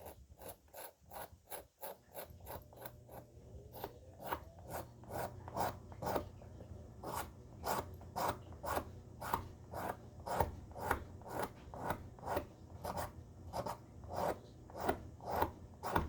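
Old wooden screwdriver handle being scraped down by hand to clean off the grime and bare the wood, in repeated strokes about two a second. The strokes are light for the first couple of seconds, then come steadier and louder.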